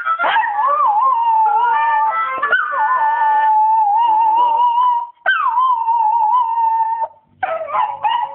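Dog howling long, wavering notes along with blues music. The howl breaks off a little after five seconds in and starts again with a sharp rise and fall in pitch before settling into another long note.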